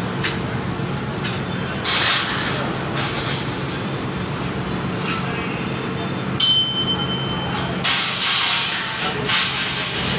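Street traffic noise: a steady low engine hum under a constant hiss, with louder hissing swells of passing vehicles about two seconds in and again near the end, and a brief high beep in the middle.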